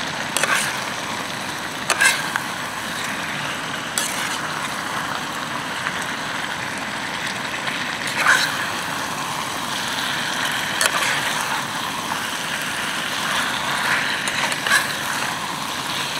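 Chicken and potato curry frying in a pan on a portable gas stove: a steady hiss, with a metal spatula scraping and clinking against the pan a few times as it is stirred.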